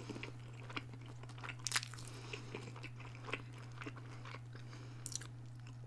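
Close-up chewing and biting of a breaded vegetarian chicken strip: scattered short crunches and mouth clicks over a steady low electrical hum.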